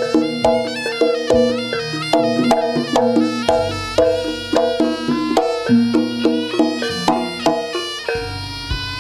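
Javanese jaranan music: a reedy wind-instrument melody in held, stepping notes over gamelan percussion keeping a steady beat of about two strokes a second.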